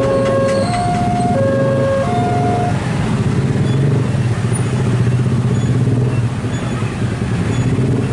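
KAI Commuter electric multiple-unit train running along the track with a steady low rumble. For the first few seconds an alternating two-note warning tone sounds over it, high and low notes swapping about every two-thirds of a second, and then it stops.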